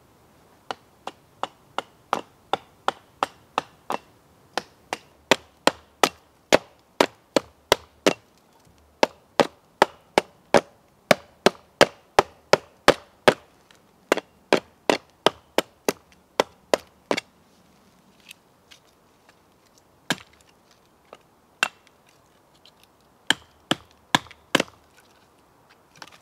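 Hatchet chopping into a dead log: quick, regular blows about two or three a second, then after a pause a few slower, scattered strikes near the end.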